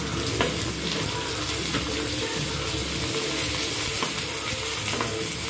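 Chopped tomatoes, onions and garlic sizzling in hot oil in a nonstick frying pan as they are stirred, with a few light clicks of the utensil against the pan.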